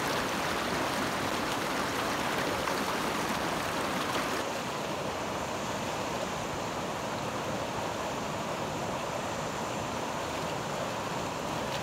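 Mountain stream rushing over rocks: a steady, even hiss of running water, thinning a little in its upper range about four seconds in.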